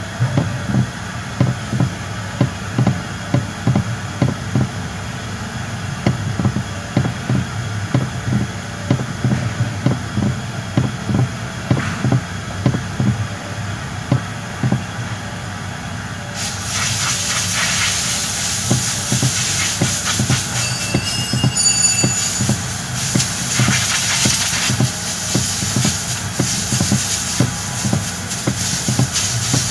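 Repeated low kletek-kletek knocking, about two to three knocks a second, from the loose mounting bolt and dry bushing of a 2019 Toyota Rush's steering column. From about halfway through, a steady hiss runs under the knocks.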